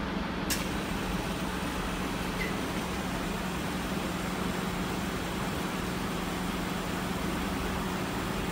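Steady electrical hum with a fan-like background from a high-voltage breakdown tester as its test voltage ramps up. A single sharp click comes about half a second in, just after the start button is pressed.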